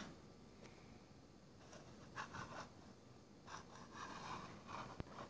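Faint scraping and rubbing as a model car's display base is slid and turned on a wooden desk by hand, in two short stretches, with a single sharp click near the end.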